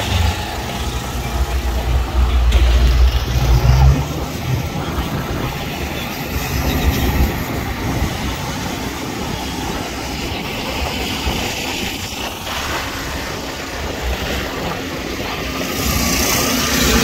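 A low engine rumble close by, loudest a few seconds in, then fading into steady background noise.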